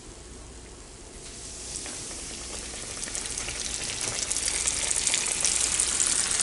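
Cornmeal-coated gator meat frying in a cast iron pan: a crackling sizzle that starts about a second in and grows steadily louder.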